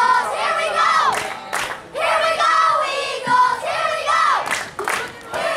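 A group of young voices chanting and shouting together as a cheer, in two long stretches with a short break between them.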